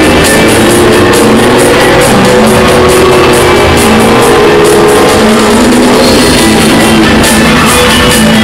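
Loud rock music with guitar and drums, a steady beat.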